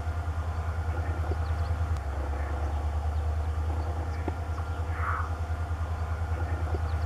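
EMD WDG4 (GT46MAC) diesel locomotive working in multiple with a WDP4D as it approaches, its two-stroke V16 diesel giving a low, pulsing drone while working under power and putting out smoke.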